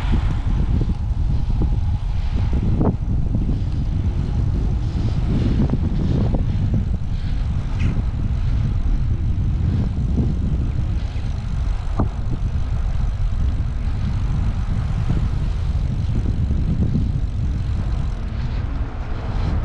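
Wind buffeting the microphone while riding: a loud, steady, low rushing rumble with no clear engine tone.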